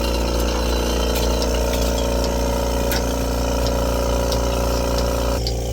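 Portable milking machine running: a steady motor-and-vacuum-pump hum with light, regular pulsator ticks. About five seconds in, the hissing part of the sound drops away while the hum and ticking go on.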